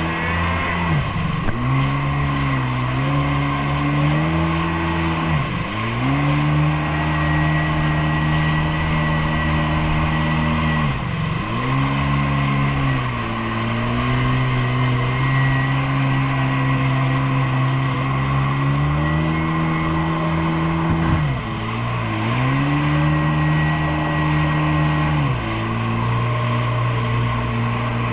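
Jet ski engine running under way, its pitch dropping and climbing again several times as the throttle is eased and reopened, with a steady high whine and a hiss of wind and water.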